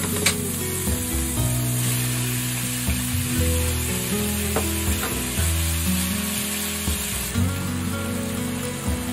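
Thin-sliced beef and sliced onion sizzling in hot oil in a nonstick frying pan, stirred with a spatula, with a few sharp clicks of the spatula against the pan. Light background music plays underneath.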